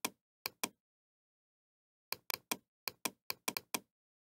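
Computer mouse clicking: three sharp clicks in the first second, then a quick run of about ten clicks between two and four seconds in.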